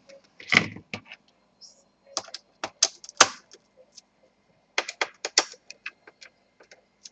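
Irregular sharp clicks and taps of a screwdriver and hands on an opened Acer Aspire 7535 laptop's plastic chassis near the hinges, in two quick clusters.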